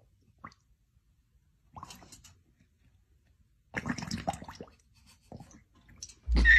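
A large long-haired dog lapping water from a stainless steel bowl, in irregular wet bursts of slurping with pauses between. Loud music cuts in near the very end.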